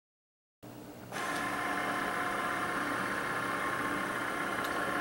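Cricut cutting machine's motor running steadily as its rollers feed the cutting mat back out of the machine, a hum with several steady tones that starts about a second in. There is one brief click near the end.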